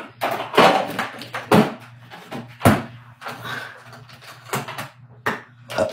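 A string of irregular knocks and clatters from household things being handled and put away, with a cupboard or door knocking shut among them.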